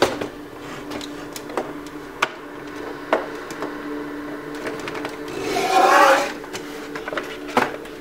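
A plastic monitor stand scraping across the workbench as the monitor is swung round, loudest about six seconds in, with a few light knocks and clicks of the plastic casing. A steady low hum runs underneath.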